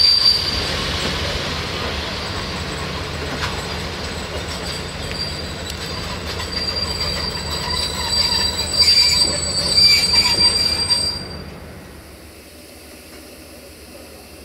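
Railway passenger train rolling with its wheels squealing in steady high tones over a rumble and occasional rail clicks; the sound falls away sharply about eleven seconds in.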